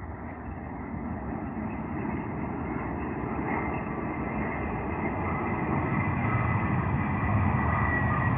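Renfe Class 130 Alvia train passing at speed: a steady rushing rumble that grows louder throughout, with a thin high whine coming up toward the end.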